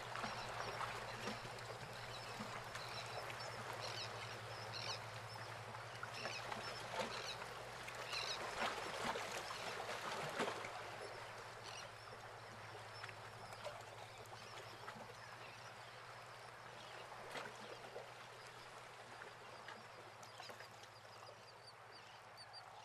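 Faint harbour ambience: a wash of lapping water with scattered short bird calls, mostly in the first ten seconds or so, over a low steady hum.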